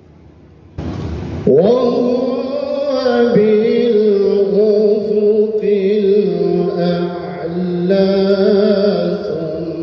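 A male qari reciting the Qur'an in a melodic, drawn-out tilawah style into a microphone over loudspeakers, starting about a second in with a long held, wavering note after a short burst of noise.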